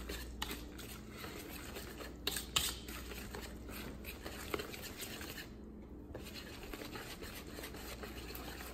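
Wire whisk stirring thick cornbread batter in a plastic mixing bowl: faint scraping and light clicking, with a couple of louder clicks a little over two seconds in.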